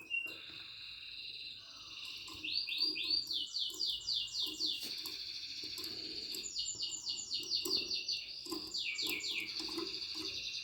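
Yellow mosaic canary singing: a continuous song of high trills, each a rapid run of quickly repeated downward-sweeping notes.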